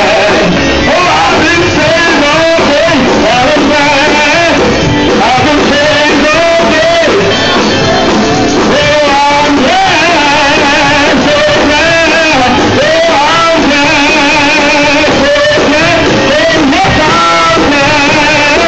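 A man singing a gospel praise song into a microphone, with held notes that waver in a strong vibrato, over a Hammond organ accompaniment. Loud throughout.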